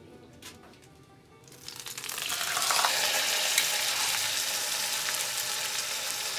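Beef roast laid into hot clarified butter in a cast-iron Dutch oven: a loud sizzle starts about two seconds in and carries on steadily as the meat sears.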